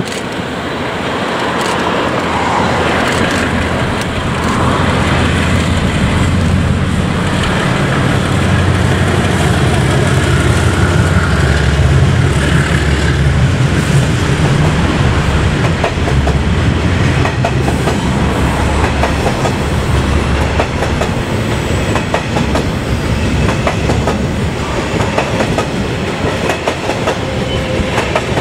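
Two DXC-class diesel-electric locomotives passing close under power, their low engine drone building over the first few seconds. A long rake of coal hopper wagons then rolls by, wheels clicking regularly over the rail joints.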